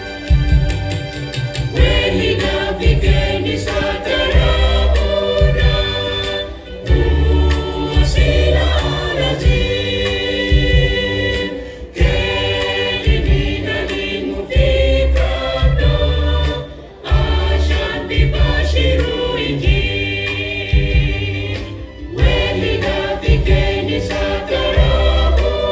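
Church choir of men's and women's voices singing a gospel song in harmony over a deep bass line, with short breaks between phrases.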